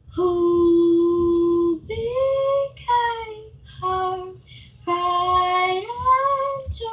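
A young girl singing unaccompanied, with a long held note near the start, a few shorter notes, and another long note about five seconds in.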